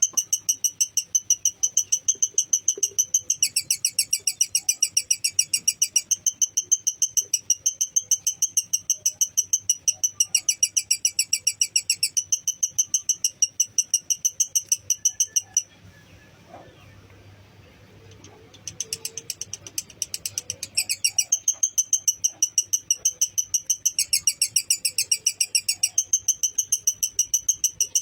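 Lovebird's long ngekek chatter: an even, rapid string of sharp, high chirps, about five or six a second, turning harsher for a couple of seconds at a time. It breaks off for about three seconds in the middle, then resumes.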